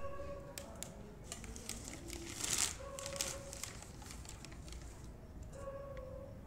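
Foil wrapper crinkling and rustling as fried chicken is shaken out of it into a steel dog bowl, loudest about two and a half seconds in. A short, steady high whine sounds three times: at the start, about three seconds in and near the end.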